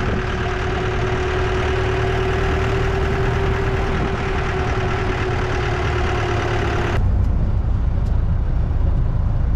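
Motor vehicle running with a steady engine hum and road noise. About seven seconds in, the sound changes abruptly to a deeper, duller rumble.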